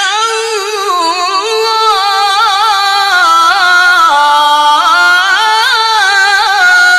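A qari's male voice in melismatic Islamic recitation, holding one long unbroken high phrase on a single breath, wavering through quick ornaments.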